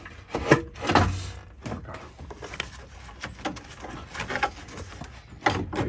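Irregular knocks, clicks and scrapes of engine-bay parts being handled as intake parts are wiggled loose from a Honda CR-V engine.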